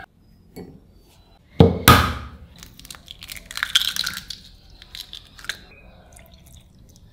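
An egg knocked sharply twice against a glass bowl, then the crackle of the shell being pulled apart as the egg falls into the bowl of flour, with a few small clicks after.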